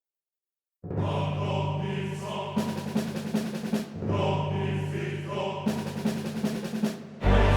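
Dramatic background music with choir and timpani, coming in suddenly out of silence about a second in and growing louder near the end.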